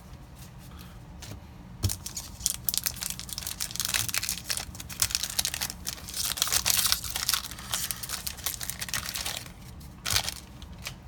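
Foil booster-pack wrapper crinkling and tearing as it is opened, in quick irregular crackles starting about two seconds in, with one more short burst of crackling near the end.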